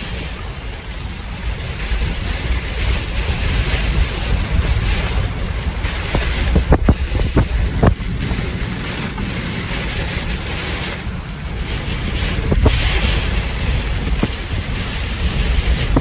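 Extreme thunderstorm downdraft winds, gusts of 60-plus, rushing and buffeting the microphone with a heavy low rumble that swells and eases. A few sharp knocks come about seven seconds in and again near twelve seconds.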